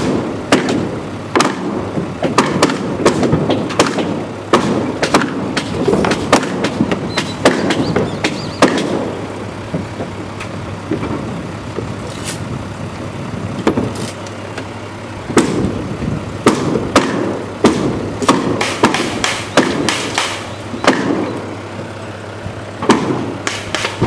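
Mallets knocking interlocking log-house timbers down into place: irregular hard wood-on-wood knocks over the clatter of logs being handled. The knocks thin out for a few seconds midway, then come thick again.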